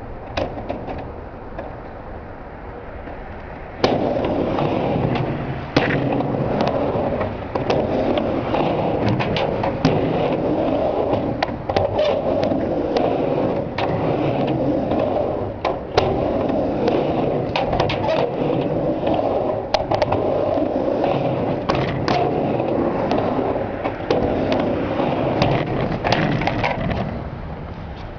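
Skateboard run on a mini ramp: wheels rolling back and forth, starting about four seconds in, with repeated sharp clacks of the trucks and tail on the coping and of landings.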